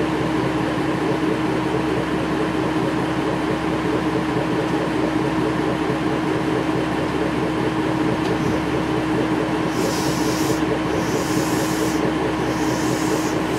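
Hojo Railway Flower 2000 series diesel railcar idling at a standstill, a steady engine hum with a constant tone. Three short bursts of high hiss come in about ten seconds in.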